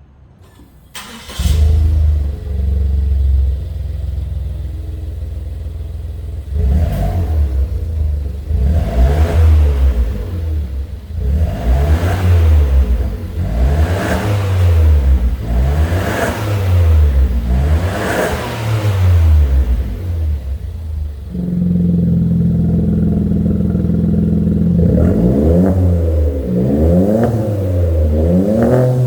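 Suzuki Swift RS ZC13S's 1-litre turbocharged three-cylinder engine, breathing through a stainless cat-back active exhaust, starts about a second in and idles. It is then free-revved in about seven rises and falls, held steady at a raised speed for a few seconds, and blipped quickly again near the end.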